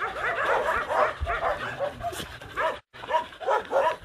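Several dogs barking and yipping at once, short overlapping barks several times a second, with a brief break in the sound a little before three seconds in.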